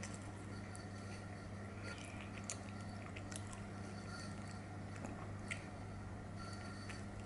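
Close-up sounds of biting and chewing a poppy seed bagel with cream cheese, with a few short crackles as the bread is torn, over a steady low hum.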